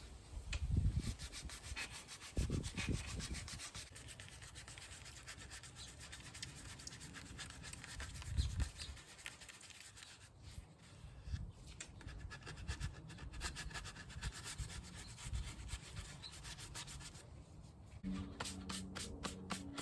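Sandpaper rubbed by hand over a primed 3D-printed helmet part in quick repeated scratchy strokes, with a few low knocks from handling the part in the first few seconds. Near the end a low steady hum joins in.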